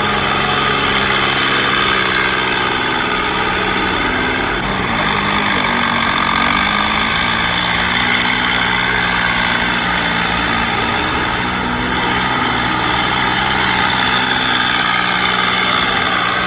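Bulldozer's diesel engine running steadily and loud, its pitch sagging for a couple of seconds near the middle and then recovering.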